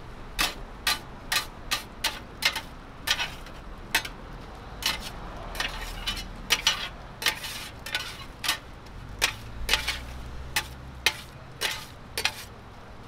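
Metal griddle scrapers clacking and scraping on a flat steel griddle while stir-fried noodles in sauce are tossed and gathered. The strikes come about twice a second, with a few longer scraping strokes in the middle.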